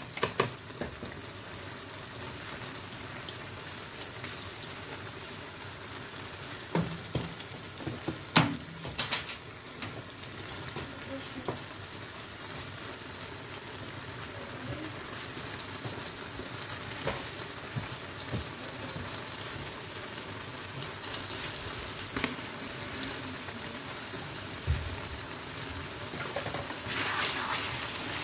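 Tomato and chicken sauce sizzling in a stainless steel pot with a steady hiss, while a wooden spoon stirs in spinach, scraping and knocking against the pot. A few sharp knocks come around eight seconds in, with one or two more later.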